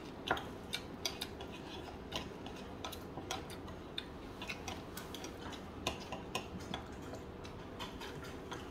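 Light, irregular clicks of chopsticks and tableware against dishes during a meal, several a second at times, over a low steady room hum.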